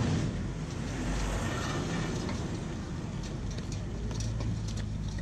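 Steady street-traffic rumble, with short wet slaps and clicks as a hand mixes thick urad dal batter in a steel bowl.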